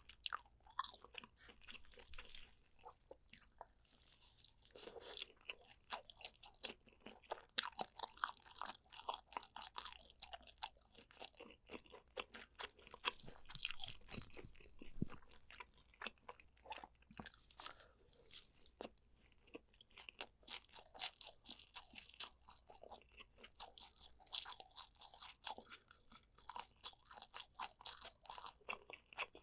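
Close-miked eating sounds: chewing and biting spicy soy-braised pork ribs, a dense, irregular run of short wet smacks and clicks with no pause.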